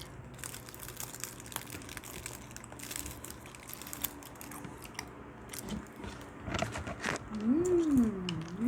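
Close-up mukbang eating sounds: biting, chewing and the crinkling of food wrapping, in many short sharp clicks. Near the end a voice hums in a wavering, rising and falling tone.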